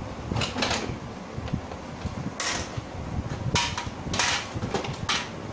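Plastic housing of an Epson L565 printer knocking and scraping as its scanner unit is lifted and the body handled: several short clatters and scrapes.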